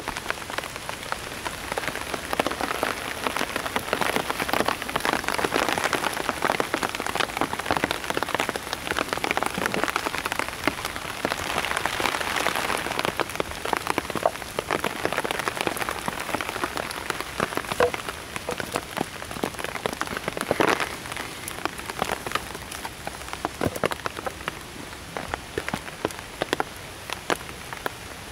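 Rain falling on a survival-blanket shelter, a dense patter of separate drops that swells and eases a little now and then.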